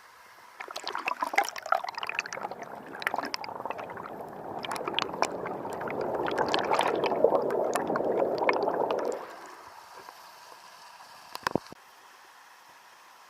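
Water splashing and gurgling in a stream for about eight seconds, building to a steady rush before stopping suddenly. Two sharp knocks follow near the end.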